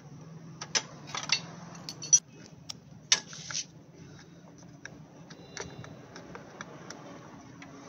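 Steel spanner clinking against a nut and the generator's metal cover as the nut is worked loose: a cluster of sharp metallic clinks over the first few seconds, then lighter, scattered ticks.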